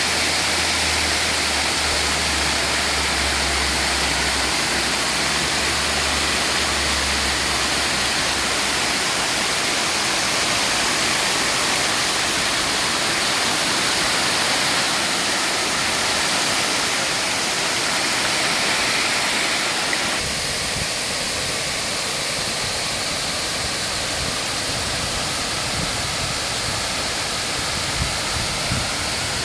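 Waterfall in full rainy-season flow: a loud, steady rush of falling water. A low rumble sits under it for the first third, and the rush changes character about two-thirds of the way through.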